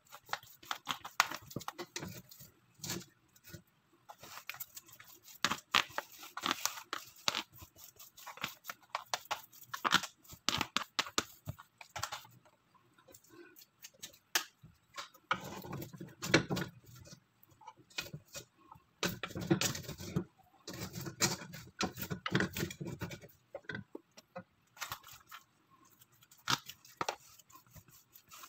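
A spoon scraping and tapping in a plastic tray as sticky rice cake is spread and pressed into it: a run of irregular scrapes and clicks, busier and fuller for several seconds in the middle.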